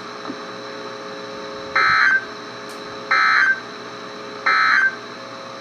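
Emergency Alert System end-of-message signal on NOAA Weather Radio: three short, buzzy bursts of digital data tones about 1.3 seconds apart over a steady radio hiss, marking the end of the alert.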